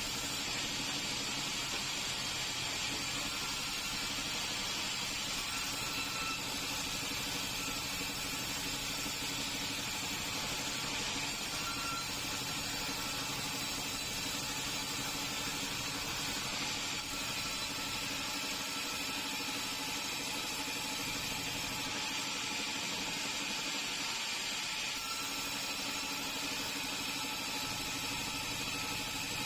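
Sawmill machinery running steadily, a constant even whir that holds without change.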